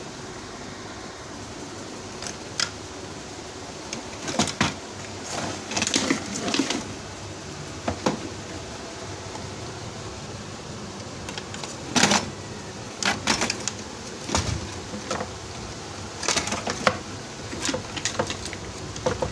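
Irregular clicks, knocks and rattles of plastic parts and tools being handled as an air-conditioner control board is taken out of its housing. They come in clusters over a steady room hum.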